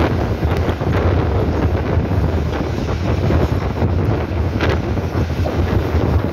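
Wind buffeting the microphone out of a moving train's open window, over the steady low rumble of the train running on the rails, with a few faint knocks here and there.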